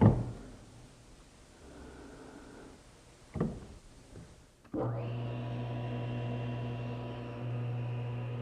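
Two sharp knocks, one at the start and one about three and a half seconds later. Then, about five seconds in, a table saw motor switches on and runs with a steady hum.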